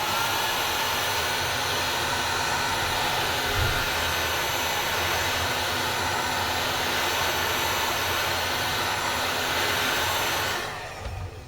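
Heat gun blowing hot air steadily to soften the back-glass adhesive on a phone, shutting off and fading away near the end.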